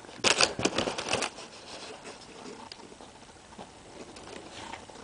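Welsh corgi nosing along the rug and eating dropped popcorn: a quick run of short crunching and sniffing noises in the first second or so, then only a few faint scattered clicks.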